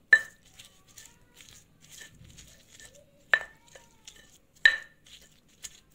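Stone pestle (ulekan) pounding and crushing chilies, shallots and shrimp in a volcanic-stone mortar (cobek). Quick soft crunching taps run throughout, and three sharp, ringing knocks of stone on stone come at the start, a little past halfway and about three-quarters of the way in.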